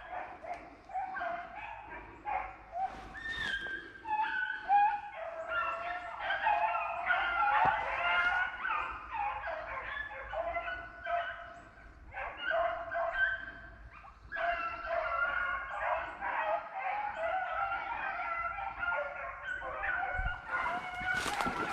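A pack of rabbit hounds baying and yipping together, several voices overlapping almost without a break: the hounds giving voice on a rabbit's trail. There is a brief lull about two-thirds of the way through.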